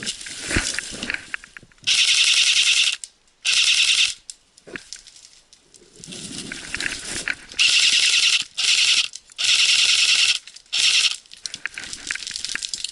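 Airsoft electric rifle firing full-auto: about six short bursts of rapid, evenly spaced shots, each under a second long, with gaps of quieter movement between them.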